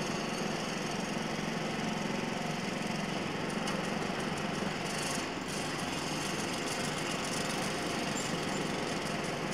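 Demolition sound effect: a steady engine drone of machinery, with scattered light knocks and crackles of breaking material from about a third of the way in. No single large collapse is heard.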